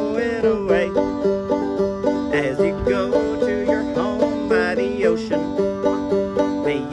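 Five-string banjo played in a quick, steady rhythm of plucked notes, with a woman's voice singing along in short phrases.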